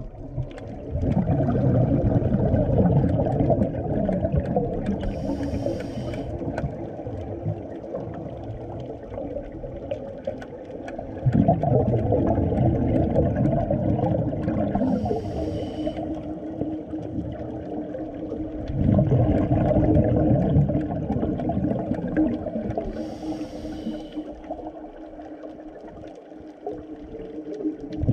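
A scuba diver breathing through a regulator underwater: long bursts of exhaled bubbles about a second in, near 11 seconds and near 19 seconds, each followed a few seconds later by a short hiss of inhalation.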